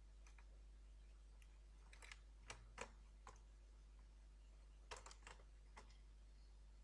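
Light clicks and taps of a laptop motherboard and its plastic case being handled while the board is seated back in the chassis, in two short clusters about two and five seconds in, otherwise near silence.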